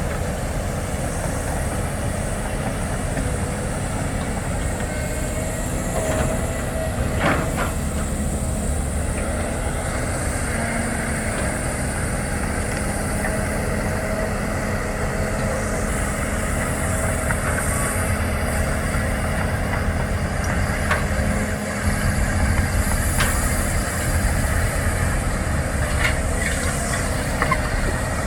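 Heavy diesel earthmoving machinery, a hydraulic excavator at work, running with a steady deep rumble and occasional sharp metal clanks. It gets a little louder a bit over 20 seconds in.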